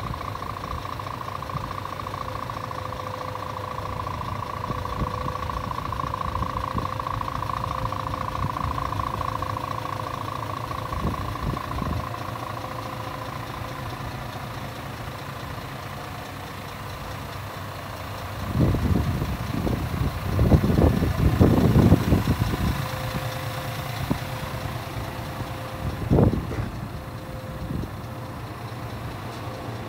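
Scania S500 truck's diesel engine idling steadily, with a faint steady whine over the low hum. Louder bumps and rumbles come in a cluster about two-thirds of the way through, and once more a few seconds later.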